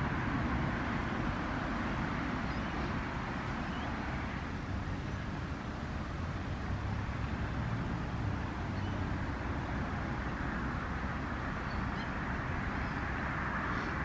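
Steady wind noise: a low rumble of breeze buffeting the microphone under a broad hiss, with a few faint high chirps.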